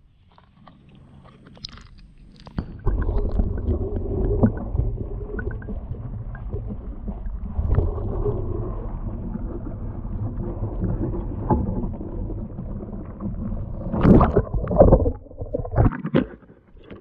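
Muffled underwater rumble and gurgling of creek water, heard with the camera held under the surface. It starts about three seconds in, and a few louder splashes or knocks come near the end.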